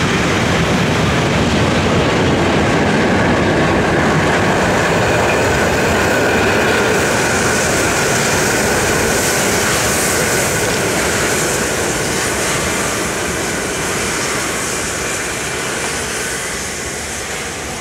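A train rolling past close by: a steady, loud rumble of wheels on rail with a faint squeal, fading slowly over the last several seconds.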